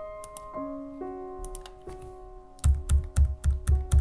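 Soft solo piano background music with sustained, changing notes. Over it, a few light clicks, then from a little past halfway a quick run of about six computer-keyboard keystrokes, which are the loudest sounds.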